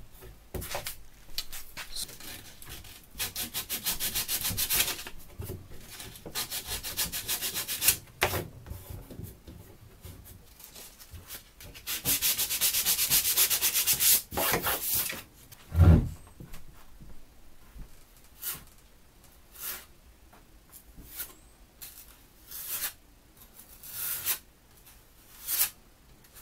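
Hand sanding on wood: sandpaper rubbed back and forth in bursts of quick scratchy strokes. There is a single sharp knock about sixteen seconds in, followed by short, scattered rubs.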